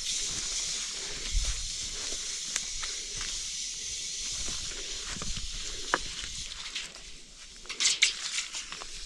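A steady high hiss with light rustling and a few small clicks, as of people moving about on dry ground while handling a tape measure.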